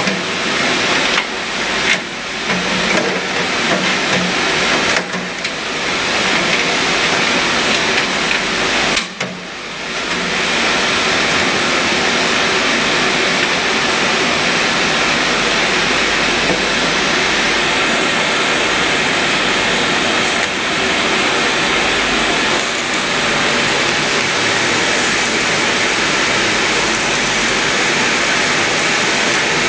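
Gas torch flame hissing steadily, with several brief dips in the first ten seconds.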